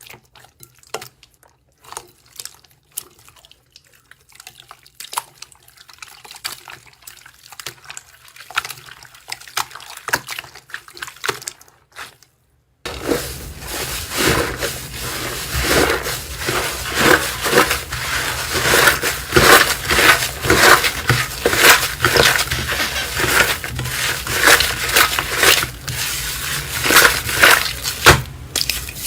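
Slime being squeezed and worked by hand, giving wet, sticky clicks and pops. About thirteen seconds in, the sound cuts abruptly to a louder, denser run of crackling clicks.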